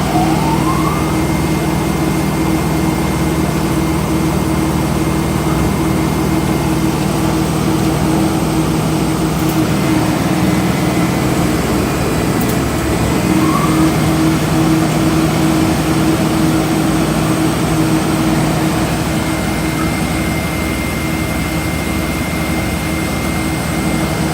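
Lobo PA-5275 52-inch planer sander running with no board fed, its motors and cutter and sanding heads giving a steady hum.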